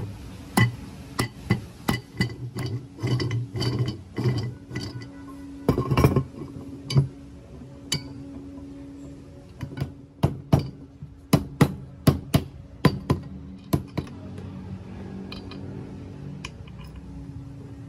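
Metal gearbox parts and hex bolts clinking and knocking against each other as a shaft flange is fitted onto its housing and the bolts are set in place by hand. Sharp knocks come in quick runs, thickest around the middle, thinning out near the end, over a steady low hum.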